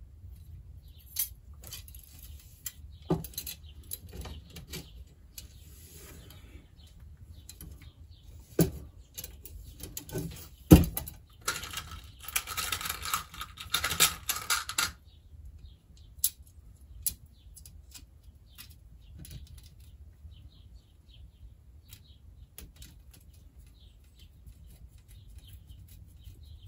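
Steel bicycle spokes being threaded through a hub and rim, clicking and rattling against each other and the metal, with a busier stretch of clatter about twelve seconds in. After that only faint scattered ticks.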